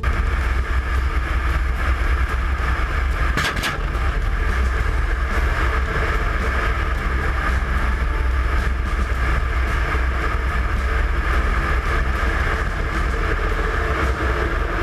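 Kamov Ka-52 helicopter in flight, heard from a camera mounted on its fuselage: the coaxial rotors and twin VK-2500 turboshaft engines make a steady, loud rumble under a rushing noise of air over the microphone. There is a brief crackle about three and a half seconds in.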